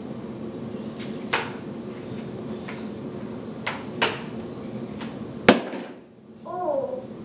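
A sippy cup and a toddler's hands knocking on a plastic high-chair tray: several sharp knocks, the loudest about five and a half seconds in, over a steady low hum. A toddler babbles briefly near the end.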